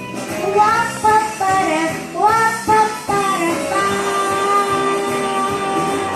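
Music: a melody that slides between notes over an accompaniment, settling into a long held note about four seconds in.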